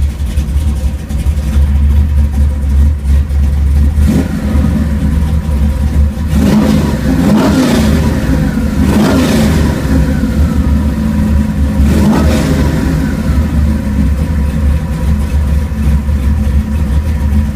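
427 cubic-inch stroker V8 with a hydraulic roller cam, on a raw start-up tune, idling steadily and blipped about four times with quick rises and falls in revs. Heard from inside the car's cabin.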